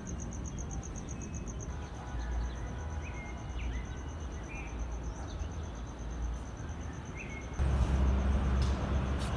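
Outdoor city ambience: a low rumble under a steady, high, fast-pulsing insect trill and a few short bird chirps. About three-quarters of the way in the trill stops and the rumble gets louder.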